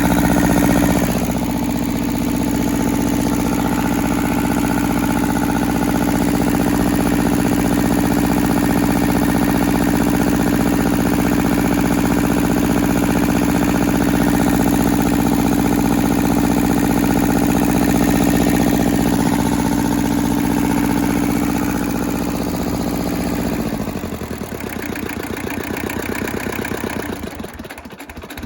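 Hinomoto compact tractor's small Toyosha diesel engine running steadily at a raised speed, then throttled back about 24 seconds in to a slow, uneven idle. It is running to bring its freshly filled cooling system up to heat.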